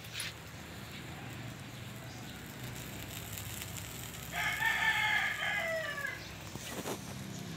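A rooster crows once, a single call of about two seconds that drops slightly in pitch at the end, over a low steady hum.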